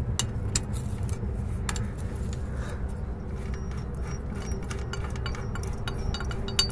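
Metal wrench clicking and clinking against the bolts of a truck driveshaft's universal-joint flange as they are loosened and backed off, in many quick irregular taps. The clicks come thicker in the second half, with a few short ringing metal notes, over a low steady rumble.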